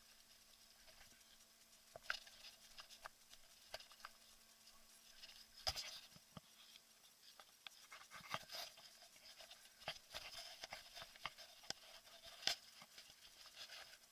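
Faint rustling with scattered short clicks and taps, irregular and sparse, the sharpest about six seconds in and again about twelve and a half seconds in.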